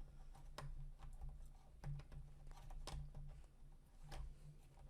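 Faint, scattered light clicks and taps of hands working motor cables into the 3D printer's plastic electronics housing, over a low steady hum.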